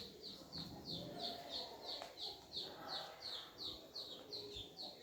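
A bird calling over and over: a short, high, falling note repeated evenly about three times a second.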